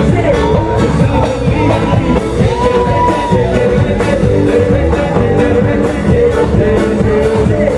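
Live band playing loud amplified music, a singer's voice carrying the melody over a steady drum beat.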